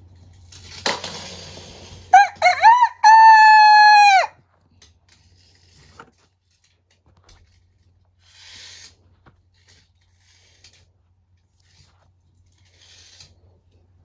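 A rooster crowing once, cock-a-doodle-doo: a few short rising notes, then one long held note that falls off at the end, just after a brief rush of hiss.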